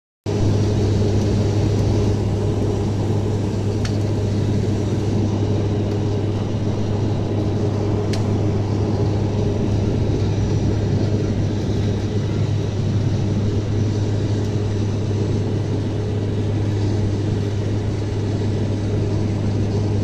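Steady, loud drone of a turboprop airliner in flight as heard inside the cabin, with a strong low hum from the engines and propellers. It cuts in abruptly just after the start.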